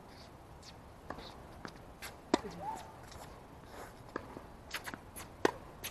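Tennis rally on a hard court: two sharp racket-on-ball strikes about three seconds apart, the loudest sounds, with fainter ball bounces, distant hits and footsteps in between.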